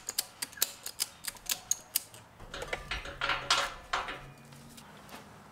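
Ratchet strap being cranked tight, its ratchet clicking about five times a second. About two and a half seconds in, the clicks give way to a louder scraping rustle for a second or two, then it goes quiet.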